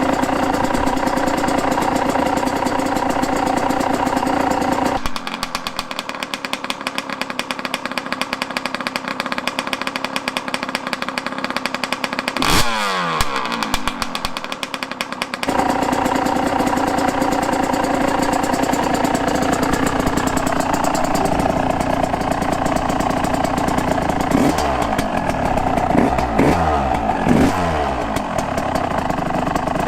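Yamaha YZ125 two-stroke single-cylinder dirt bike engine running through a new stock header and silencer, idling steadily. Its revs rise sharply once about halfway through and fall back. They rise and fall again several times in quick throttle blips near the end.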